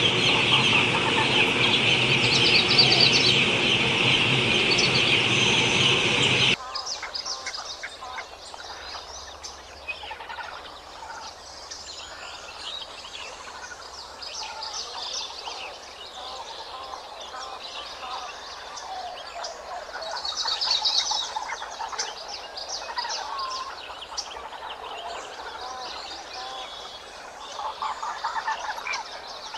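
A large flock of young chicks peeping all at once, a dense, loud chorus of high calls that cuts off suddenly about six seconds in. After it, quieter scattered high bird chirps.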